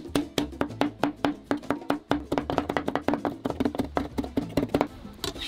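Chef's knife rapidly chopping leafy herbs on a plastic cutting board: a quick, steady run of knocks, about six a second, that stops near the end.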